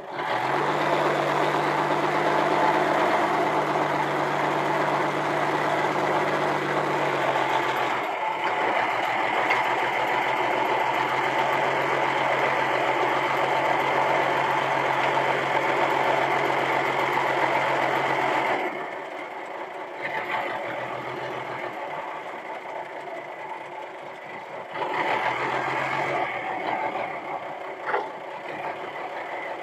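Old forklift's engine running at raised revs while its hydraulic lift is worked from the control lever. It drops to a lower, quieter running about two-thirds of the way through, picks up again briefly near the end, and a single sharp click follows.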